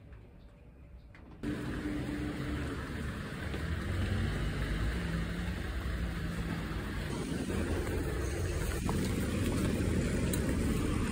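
Quiet room tone that cuts after about a second and a half to outdoor street ambience: road traffic running past with a steady low rumble.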